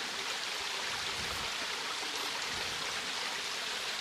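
Steady sound of flowing water, a garden stream trickling and splashing with an even hiss.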